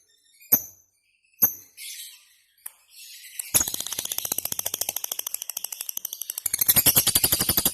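Lovebird calling: a few short sharp chirps, then about three and a half seconds in a long, rapid chattering trill of many notes a second (the ngekek song), which grows louder past the middle.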